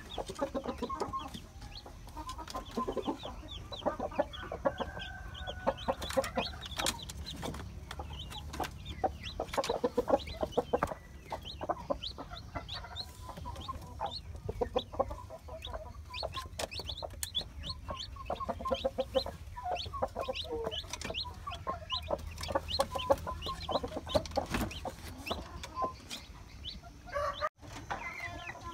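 Bangkok game chickens clucking, mixed with many short high peeps from chicks. There is a brief break near the end.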